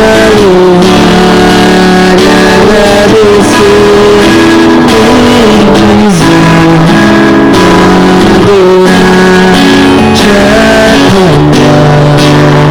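Loud instrumental music led by guitar: a melody of held notes moving up and down step by step over steady lower notes.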